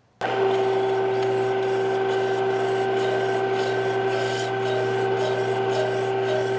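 Bench-top Chinese 3-in-1 mill-lathe-drill running, its motor humming with a steady whine, while a hand file rasps against a spinning Delrin bushing in repeated strokes, about two to three a second. The part is being filed down the last tenth of a millimetre to size.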